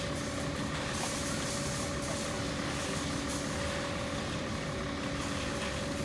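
Heavy diesel truck engine running steadily, with a constant hum held at one pitch.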